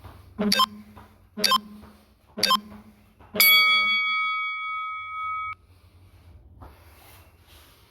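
Workout interval timer counting down: three short beeps about a second apart, then one long beep of about two seconds that cuts off abruptly, marking the end of a 20-second exercise interval.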